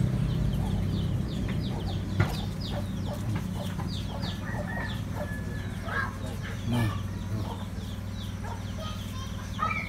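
Chickens clucking, with a run of quick, high, falling chirps, over a steady low hum.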